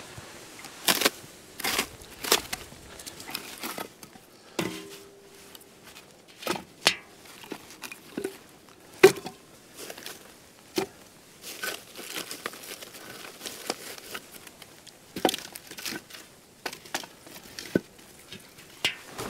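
Irregular crinkling and sharp snaps and knocks of a campfire being set up by hand.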